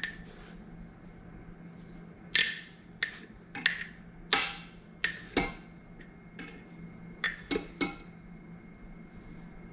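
Metal measuring spoon scooping dried basil out of a glass jar: about ten sharp clinks and short scrapes of metal on glass, spread over several seconds.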